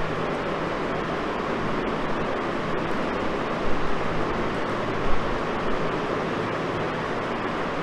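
Steady background hiss with a faint low hum, and two soft knocks about four and five seconds in.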